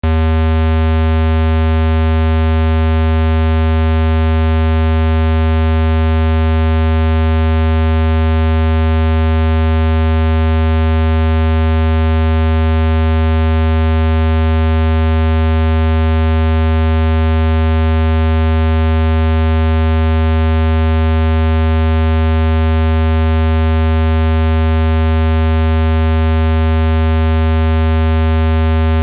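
Steady, loud, low electronic tone with a stack of overtones and no change in pitch or level. It is a synthesized speaker-cleaning sound, played at full volume to vibrate dust out of a phone speaker's grill.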